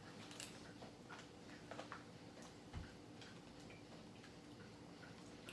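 Faint eating sounds: scattered small clicks and taps at an uneven pace, with one soft thump near the middle, over a faint steady hum.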